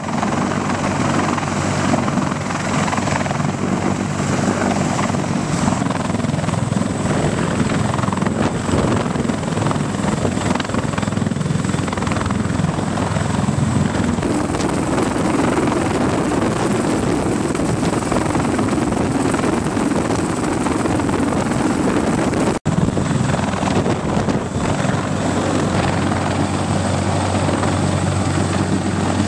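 CH-53E Super Stallion heavy-lift helicopter hovering low, its three turboshaft engines and seven-blade main rotor running steadily, with a thin high whine over the rotor noise. The sound drops out for a split second about three quarters of the way through.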